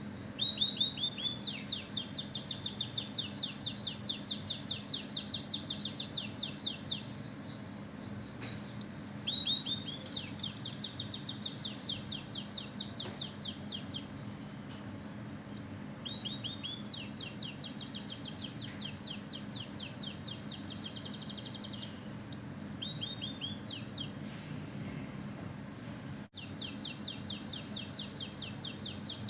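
Oriental magpie-robin singing a canary-style song it has learned: a short rising-and-falling whistle, a few falling notes, then a fast trill lasting four to six seconds. The phrase is repeated about four times with short pauses between. A faint steady hum runs underneath.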